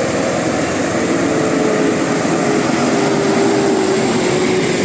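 Bus engine running with a steady drone over road rumble, its tone slowly falling in pitch.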